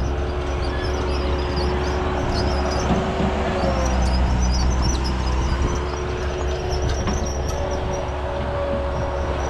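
Engine of an earthmoving machine running steadily under work, with a low rumble, a steady whine and a high squeal that comes and goes.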